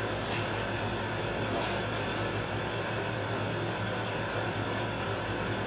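Steady fan-like background noise with a constant low electrical hum, and a few faint short crackles near the start and about two seconds in.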